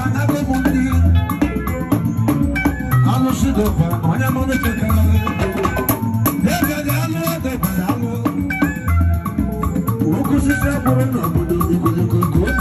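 Live band music: electric guitar lines over a drum beat, with a shaker rattling throughout.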